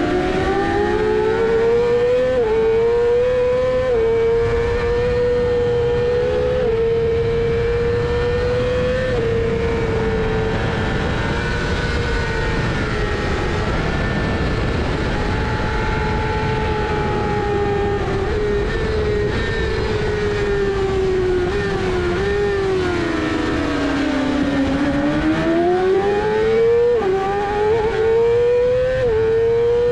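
Onboard sound of a supersport racing motorcycle's engine at full throttle on track, over wind rush. It climbs in pitch with quick upshifts in the first few seconds and holds high revs. Past the middle it falls in pitch as the bike slows for a corner, then climbs again with two more upshifts near the end.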